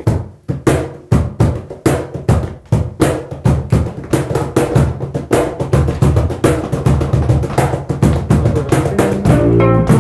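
Cajón played by hand in a quick, steady rhythm of sharp slaps and deeper bass strokes. Near the end, guitar notes come in.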